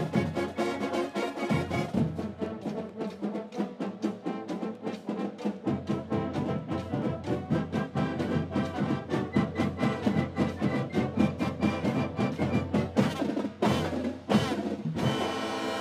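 Marching band playing live: trumpets, trombones, saxophones, clarinets and drums in a brisk, rhythmic tune. Near the end come a couple of loud hits, then a final held chord.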